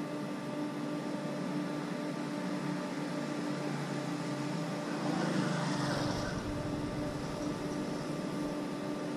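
Steady hum of street background noise, with a vehicle passing that swells and fades about five to six seconds in.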